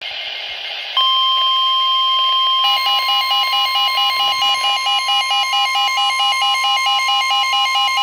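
Emergency alert attention tones. A steady high alert tone starts about a second in, and from just under three seconds in a rapidly pulsing, multi-pitched beeping alarm sounds over it.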